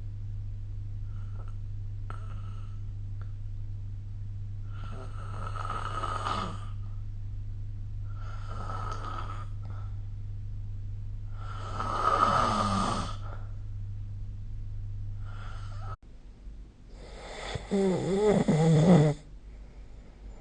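A sleeping person snoring, with a snore about every three seconds. The last snore, near the end, is the loudest and the roughest.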